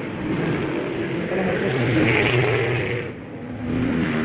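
A motor vehicle's engine passing by, swelling to a peak about two seconds in and fading away, with a second, smaller engine swell near the end.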